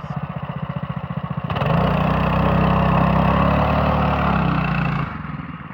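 Vehicle engine idling with a rapid throbbing exhaust note. About a second and a half in it revs up and holds high for a burnout, with a noisy hiss over it, then drops back near the end.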